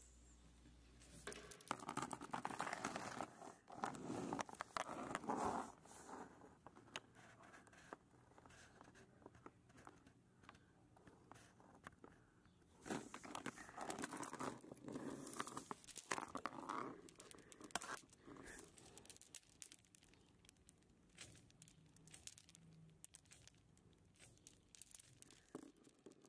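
Faint jangling clinks and crinkling rustles, swelling about two seconds in and again about thirteen seconds in, with scattered ticks between: metal chains and loose debris being stirred.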